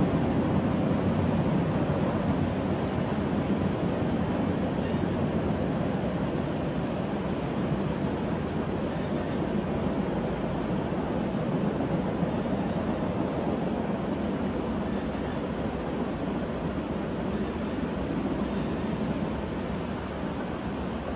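Honey bees humming at a hive entrance: the steady low drone of many wings.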